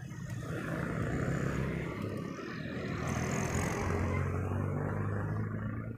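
Road traffic heard from a moving bicycle: motorcycle engines humming steadily under a rush of wind noise, one engine hum growing stronger about halfway through.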